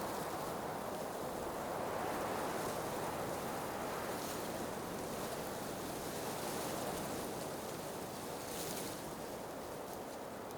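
Blizzard wind blowing in a steady rush, with a couple of brief hissing gusts.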